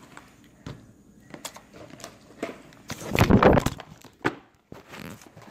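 Small clicks and knocks of handling, then a loud rustling clatter about three seconds in, followed by one sharp knock, as the propped-up phone recording it falls over.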